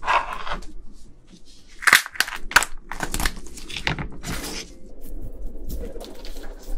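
Shell of a large cooked prawn being cracked and peeled apart by gloved hands, close to the microphone: a run of sharp cracks and crackling snaps, busiest in the middle.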